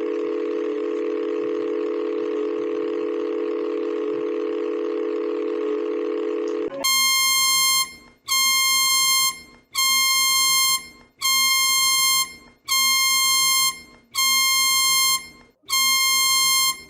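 Synthesized emergency-alert alarm tones: a steady, low multi-tone chord drones for about seven seconds and cuts off. It is followed by a harsh, high electronic beep that repeats about every one and a half seconds.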